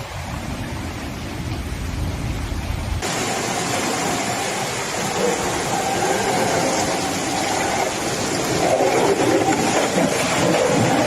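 Heavy downpour and rushing floodwater, a steady roar of noise. About three seconds in it changes abruptly to a brighter, louder rush of water.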